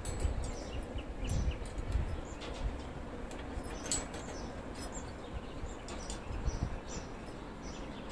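Light clicks and low knocks from bonsai wire and tools being handled on a tree, with small birds chirping in the background.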